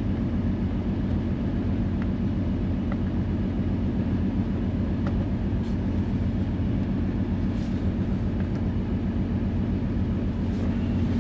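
Honda Odyssey 3.5-litre V6 idling steadily with a low, even pulse. One cylinder is misfiring, which could be bad spark plugs or an ignition coil.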